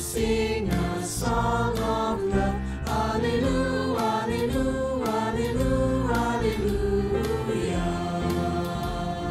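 Church choir singing the closing alleluias of a hymn chorus over instrumental accompaniment, ending on a long held chord.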